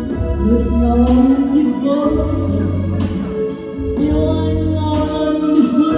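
Karaoke backing track with bass, played loud through a hall's Star Sound line array speaker system, with a woman singing along into a handheld microphone.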